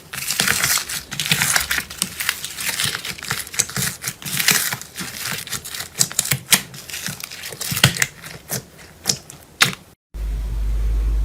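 Slime being squeezed and pressed by hand, giving dense, irregular crackling clicks and crinkly pops. Near the end the sound cuts out briefly and gives way to a steady low hum with only a few scattered clicks.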